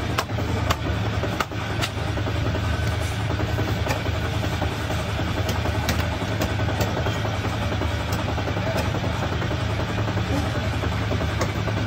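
A heavy knife chopping through a large fish into a wooden log block, giving scattered sharp knocks, more often in the first few seconds. Under it runs a steady low engine-like drone.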